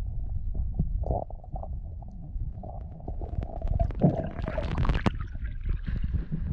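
Muffled underwater water noise picked up through a GoPro's waterproof housing: a low rumble with many small clicks and knocks. About four seconds in it swells into a loud rush of water that cuts off suddenly about five seconds in as the camera breaks the surface, leaving a lighter hiss of water and air.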